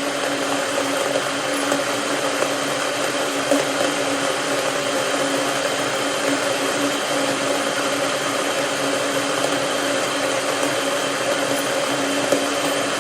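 Electric kettle heating water, a steady rushing hiss with a faint low hum underneath.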